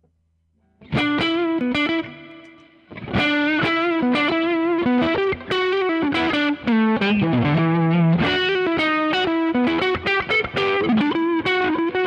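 Electric guitar played through the traditional overdrive side of a two-sided overdrive pedal, lightly distorted. A phrase starts about a second in, drops away briefly near three seconds, then runs on as a continuous line of notes with bends and vibrato.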